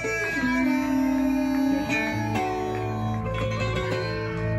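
Live band music carried by a plucked acoustic guitar-type instrument over an electric bass, held notes and chords ringing with a steady bass line underneath and no singing.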